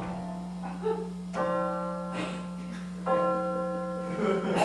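Live keyboard accompaniment playing sustained chords: a new chord is struck about a second and a half in and another about three seconds in, each held and slowly fading. A steady low hum runs underneath.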